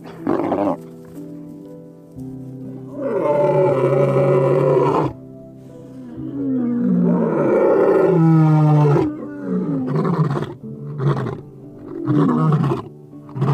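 Lion roaring: two long roars, then a run of shorter grunting roars, over background music.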